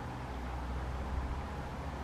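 Steady outdoor background noise: a constant low rumble under an even hiss, with no distinct calls or knocks.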